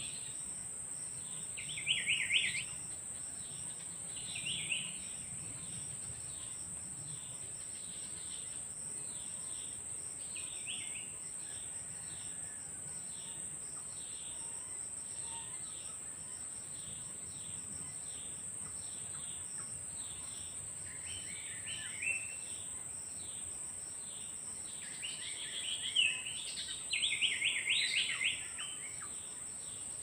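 A steady high-pitched insect drone, like a cricket, runs throughout, and small birds chirp in quick runs of short high notes several times, the longest and loudest run near the end.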